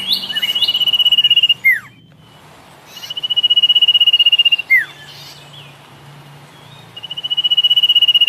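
Bird song: a rapid high trill held on one pitch for over a second, ending in a quick falling note, given twice, with a third trill starting near the end.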